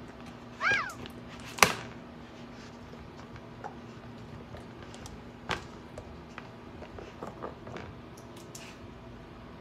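A dog biting and crunching celery sticks. There is a sharp snap about a second and a half in, another about five and a half seconds in, and lighter crunches and clicks between them. A brief squeak comes just before the first snap.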